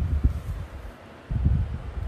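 Low rumbling buffets on the phone's microphone, one at the start and another about a second and a half in, with a quieter hiss between them.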